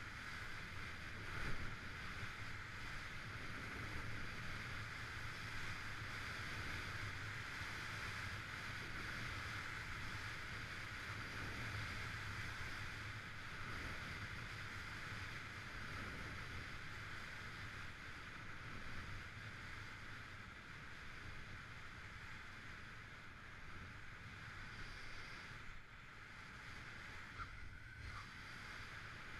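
Skis running over a groomed piste, a steady hiss and low rumble of edges on packed snow mixed with wind rushing over the microphone of the skier's own camera. A single knock about a second and a half in.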